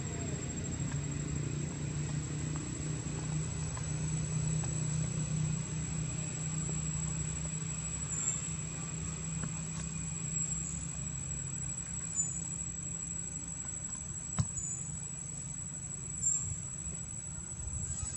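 A low, steady engine hum, like a vehicle idling, that eases off about twelve seconds in, under a steady high-pitched whine. There is a single sharp click about fourteen seconds in.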